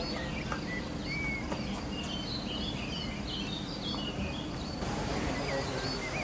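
Small birds chirping, many short quick calls and twitters overlapping, over steady background noise.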